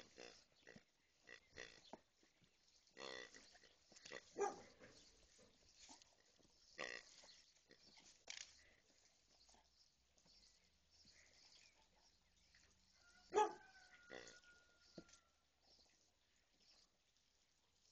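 Grey toy pig giving short grunting pig noises in bursts as a German shepherd mouths and presses it. There are about half a dozen grunts, the loudest a little past halfway, followed by a thin whistle-like tone for a couple of seconds.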